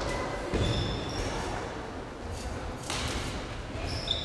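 Sports-hall background noise with a few scattered knocks and short high squeaks, typical of shoes on the court floor and shuttlecock hits.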